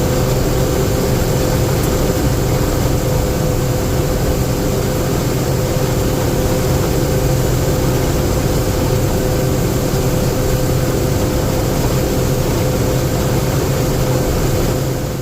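Combine harvester running steadily under harvest load, a constant engine and machinery drone with a steady low hum and a higher whine.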